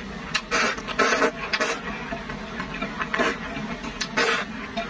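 Person slurping saucy noodles in chili oil from a bowl, in about five short, loud slurps: three in quick succession in the first two seconds, then two more spaced about a second apart.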